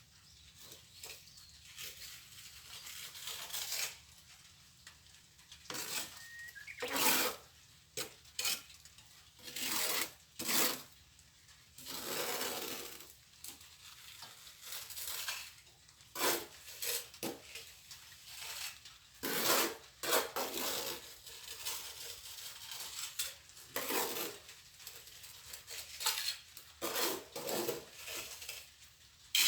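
Steel plastering trowel scraping and spreading cement mortar, in a long run of short, irregular scraping strokes.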